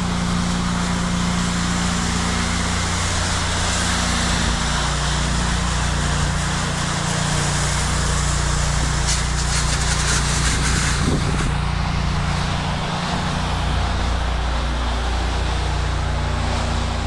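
Pressure washer engine running steadily with the hiss of the spray from the wand, applying a bleach mix through a downstream injector. The spray's hiss changes briefly about halfway through.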